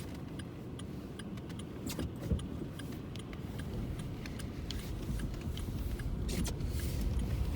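A car driving, heard from inside the cabin: steady low engine and road noise from the tyres on a snowy, slushy road, with faint light clicks and rattles.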